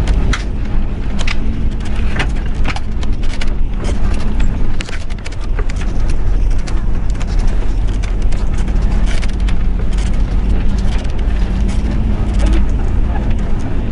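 Inside the NPM Sutan Class coach on the move: a steady low rumble of engine and tyres, with frequent short rattles and knocks from the cabin as the bus rides over uneven, damaged road.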